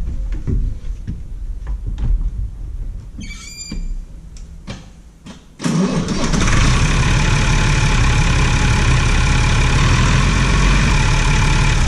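Massey Ferguson 3095 tractor's six-cylinder diesel being started on the key, powered through its newly fitted battery isolator switch. Knocks and clunks come first as the cab is climbed into, with a brief high tone. About halfway through the engine catches suddenly and settles into a steady run.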